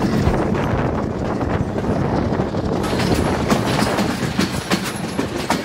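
Passenger train running along the track, heard from the open carriage doorway: a steady rush and rumble with the wheels clacking over the rail joints. The clacks come thicker and sharper from about halfway.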